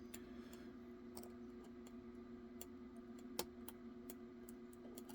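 Faint, scattered clicks of a lock pick working the pin stack of a Hager 5-pin lock core, with one sharper click about three and a half seconds in, over a steady low hum.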